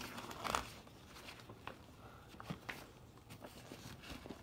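Pages of a board game rule book being turned by hand: soft paper rustling with a few light clicks and taps.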